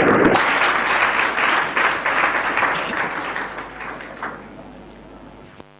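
Audience applauding, dying away gradually over several seconds. The recording cuts off abruptly near the end, leaving a steady electrical hum.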